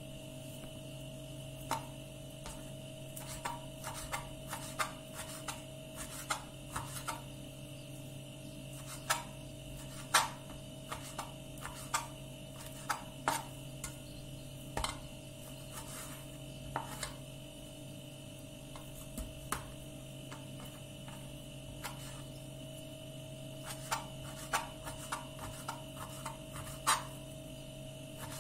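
Knife slicing raw lamb into small cubes on a plastic cutting board: irregular taps and clicks of the blade striking the board, in quick clusters with short pauses. A steady hum runs underneath.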